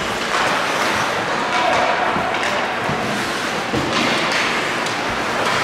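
Ice hockey game ambience in an indoor rink: spectators' voices mingle in the hall, with occasional sharp thuds from play on the ice.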